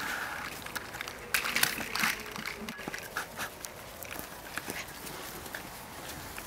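Seven-week-old puppies playing on the lawn: short puppy sounds mixed with rustling and light knocks, busiest between one and two seconds in.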